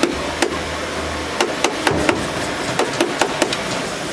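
About ten sharp knocks or taps in irregular succession, each with a short ring, over a steady background noise.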